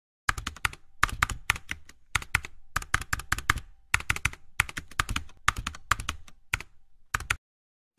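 Keyboard typing sound effect: quick runs of sharp key clicks broken by short pauses, stopping shortly before the end.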